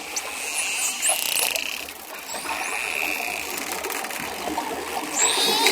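Dolphin whistling: thin, high whistles that sweep up and down in pitch, with a held buzzing tone between them over a steady hiss of water.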